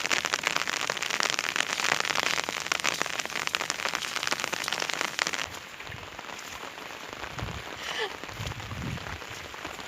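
Heavy rain falling on a surface, a dense hiss of many drops that turns quieter about five and a half seconds in, with a few low thumps near the end.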